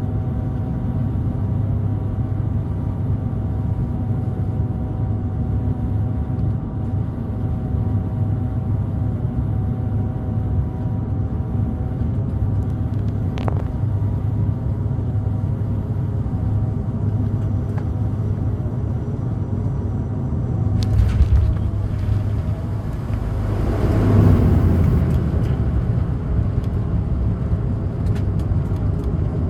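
Cabin noise of a Dash 8 turboprop taxiing after landing: the engines and propellers make a steady drone with a low hum and several steady tones. The noise swells briefly about 21 seconds in and more strongly about 24 seconds in.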